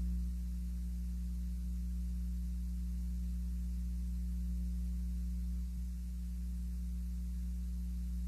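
Steady electrical mains hum with a faint static hiss on the audio feed, an audio fault that the host blames on a crinkled-up cord.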